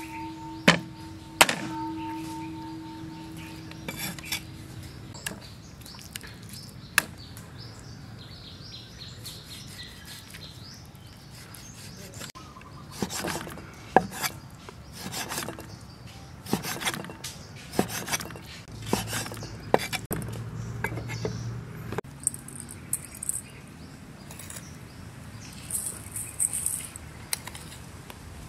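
Meat cleaver chopping pork on a round wooden chopping block: two hard knocks in the first couple of seconds, then an irregular run of chops about halfway through.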